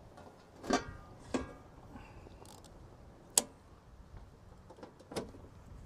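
Clanks and clicks from an RV campground power pedestal as it is handled. Two ringing metallic clanks come about a second in, a loud sharp click comes a little past the middle, and a smaller click comes near the end.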